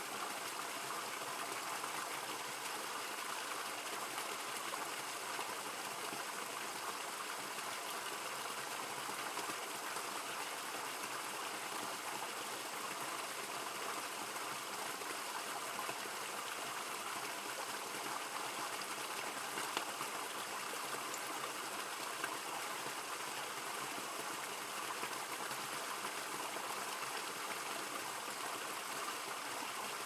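Mountain creek water pouring over a small waterfall and splashing steadily into a rock pool.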